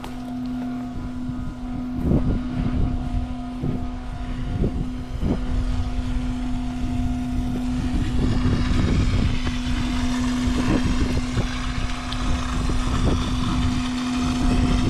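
Septic pump truck's vacuum system running steadily with a constant hum. Under it there is irregular low rumbling, busier in the second half, as waste is drawn through the suction hose.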